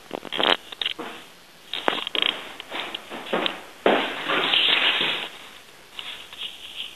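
Rustling and clicking handling noise from a handheld camera being moved around, with irregular small clicks and a longer rubbing rustle about four seconds in.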